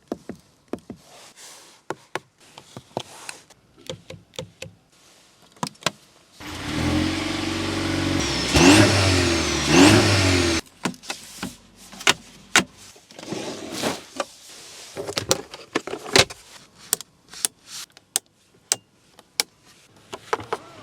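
2025 Mercedes-Benz GLC 300L: scattered sharp clicks and taps, then about six seconds in the engine runs loudly for about four seconds and is revved twice with rising pitch before cutting off suddenly. More sharp clicks follow.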